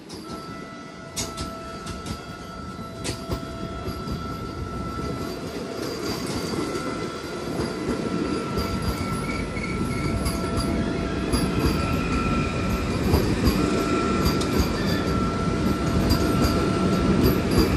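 Passenger train running past close by on the next track: a steady rumble of wheels on rail with clacks over the joints and a steady whine, getting louder throughout.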